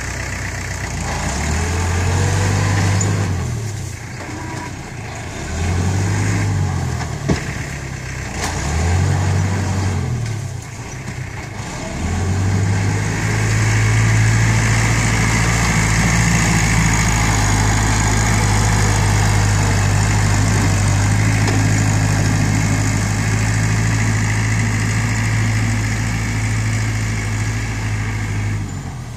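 Iseki farm tractor's diesel engine working under load. Its speed rises and falls several times over the first dozen seconds, then holds at steady high revs, with one sharp click about seven seconds in.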